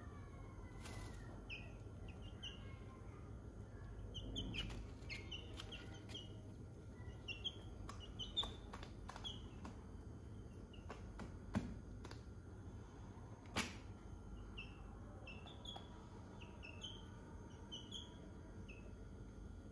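Young chickens peeping: short, high, slightly falling notes repeated irregularly, with a few sharp clicks, the loudest two in the second half.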